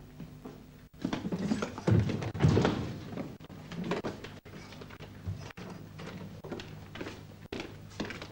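A door thunking shut, with a couple of heavy knocks about two seconds in, then lighter footsteps on a hard hospital-corridor floor.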